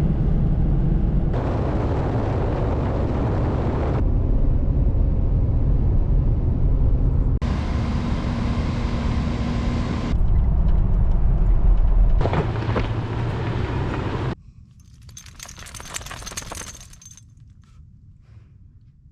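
Vehicle driving with heavy road rumble, heard as a string of short clips that cut abruptly from one to the next. About fifteen seconds in it drops to a quieter scene, where one sound swells and fades over about two seconds.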